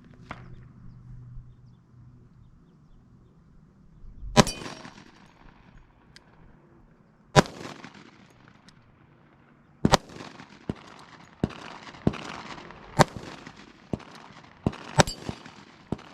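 Sig Sauer P320 X-TEN 10mm pistol firing 170 grain full metal jacket rounds one at a time. The shots come a few seconds apart at first, then closer together, with fainter cracks in between.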